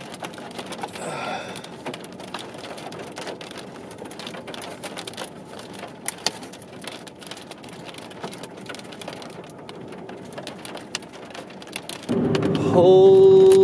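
Rain falling steadily from a tornadic supercell: a continuous hiss with scattered sharp drop clicks. About twelve seconds in, a loud, held, pitched sound cuts in over the rain.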